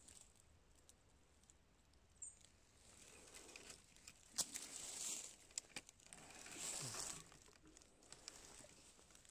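Faint rustling and crackling in dry pine needles and leaf litter, with a few small snaps, as someone moves about on the forest floor.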